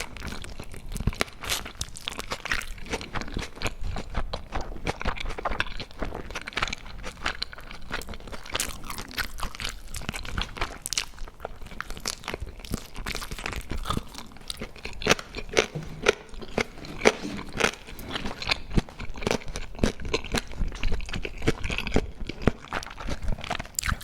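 Close-miked eating: a person biting and chewing crisp food, a steady run of irregular crunches and wet chewing clicks, somewhat louder in the second half.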